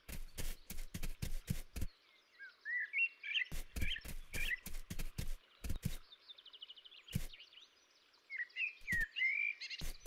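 Bursts of sharp dry crackles and snaps from wolves moving over dry pine-needle litter. Between them a small bird chirps in short twittering phrases, twice.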